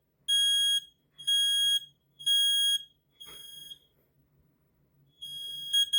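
Kidde smoke alarms sounding the three-beep fire pattern. Three loud, steady, high beeps come about a second apart, then a fainter beep. After a short pause, more linked alarms join in, their beeps overlapping near the end.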